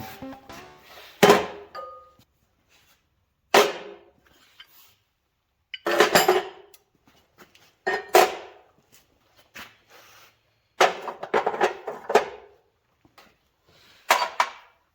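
Steel parts of an old blacksmith post vise clanking and knocking together as they are handled, in about six separate clusters of sharp metallic hits, some ringing briefly.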